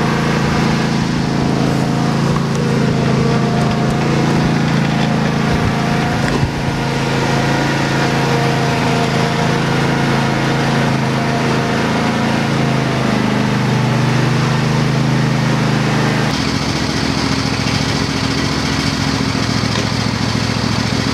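Riding lawn tractor's small engine running steadily under load while towing a snowmobile on a strap. About three-quarters of the way in, the sound changes abruptly to a rougher engine sound with a fast pulsing.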